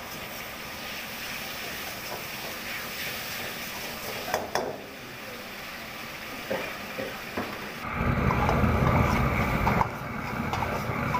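Gas wok burner running under a wok of sizzling chilli sauce, with a metal ladle scraping and clinking against the wok. About eight seconds in the burner's roar jumps much louder as flames flare up around the wok.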